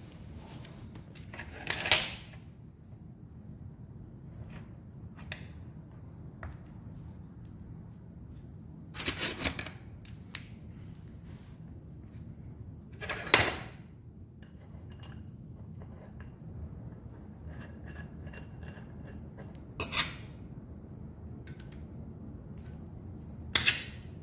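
A few short clacks and clatters of small parts being handled and set down on a workbench, over a low steady hum; the loudest come about two seconds in, around nine and thirteen seconds, and twice more near the end.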